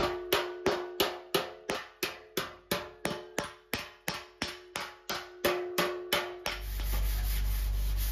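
A steel slapper striking a classic Mini's steel front wing backed by a heel dolly: an even run of metallic slaps about three a second, each with a short ringing note, relieving the tension in a deep crease of the dent. The strikes stop after about six and a half seconds.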